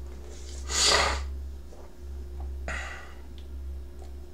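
A short, sharp breath noise close to the microphone about a second in, with a fainter one near three seconds, over a steady low electrical hum.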